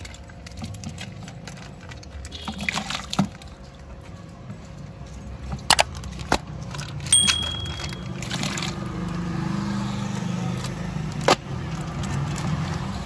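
Plastic fish bags handled and cut open with a utility knife over a bucket: plastic crinkling, several sharp clicks and snaps, and water trickling out of the bags, over a steady low background rumble.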